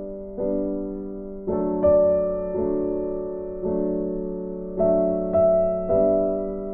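Background music: a piano playing slow chords, each struck and left to fade.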